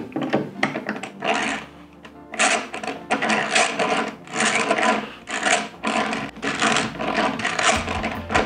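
Hand-cranked drill grinding against a snowboard: the bit scrapes in a rhythmic rasp about twice a second without biting through, over background music.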